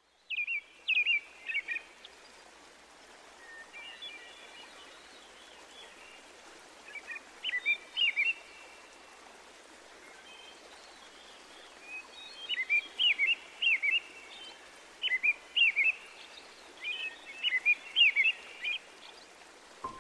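A songbird singing short, quick chirping phrases, repeated every second or two and more often in the second half, over a steady soft outdoor hiss.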